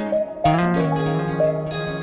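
Background music: an instrumental passage of plucked-string notes, with a new chord struck about half a second in.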